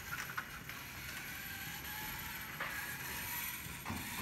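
Small self-driving RC car's electric motor and gears whirring faintly as it drives, with a few light clicks.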